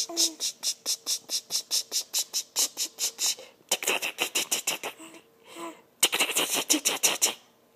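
A person making rapid, rhythmic clicking mouth noises, about five a second, in three runs with short breaks between them, plus a couple of brief voiced squeaks.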